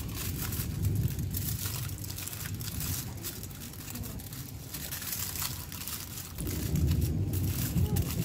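Aluminium foil crinkling in many small sharp crackles as hands fold it around a chocolate tablet. A low rumble joins in about six and a half seconds in.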